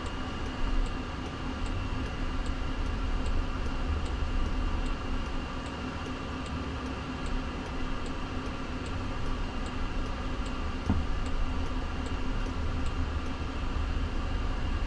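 Inside the cabin of a Waymo Jaguar I-Pace electric car driving slowly: a low rumble of tyres on the road under a steady cabin hum, with faint regular ticking.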